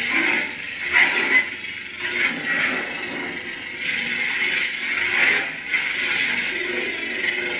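Sabertrio lightsaber playing the KRossguard sound font through its built-in speaker: a steady blade hum with swelling swing sounds each time the blade is swung, loudest about a second in and again about five seconds in.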